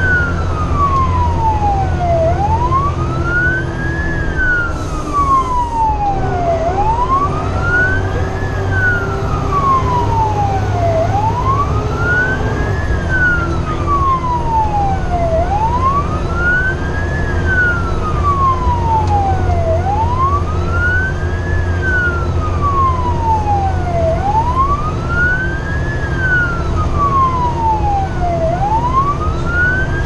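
Fire apparatus siren on wail, its pitch rising quickly and falling slowly in a cycle about every four seconds, heard from inside the truck's cab over the steady drone of the engine and road.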